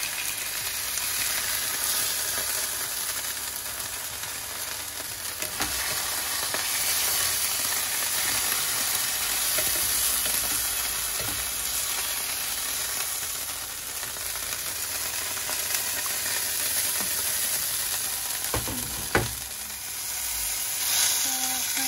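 Pork chops sizzling steadily in hot oil in a nonstick frying pan, with a few sharp knocks, the loudest near the end.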